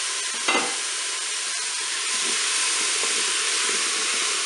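Turkey pieces and frozen onions sizzling and steaming in hot olive oil in a Cookeo multicooker's bowl on its browning setting, a steady hiss with small crackles. A wooden spatula stirs, with one knock about half a second in.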